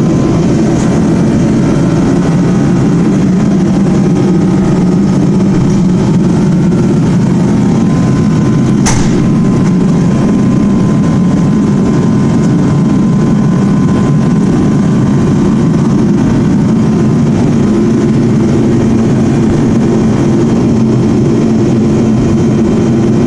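Loud, steady construction machinery noise, most likely a demolition hammer breaking up the concrete floor slab, with one sharp knock about nine seconds in.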